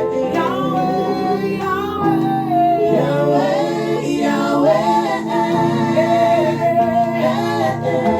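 Gospel worship singing: a voice sings long, gliding melodic runs over held instrumental chords and bass notes, the bass dropping away for a few seconds about two seconds in.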